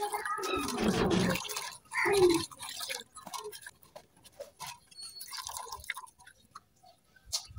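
Hand swishing shredded banana stem through water in a steel bowl: dense sloshing for the first second or so, then scattered small splashes and drips as the pieces are stirred and lifted.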